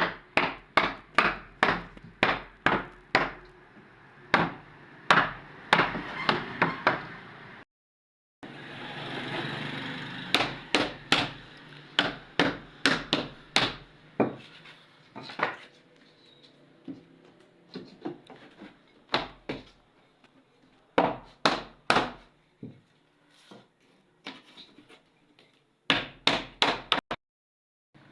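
Repeated hammer blows on wood, knocking about two or three times a second in runs, broken by brief silent gaps.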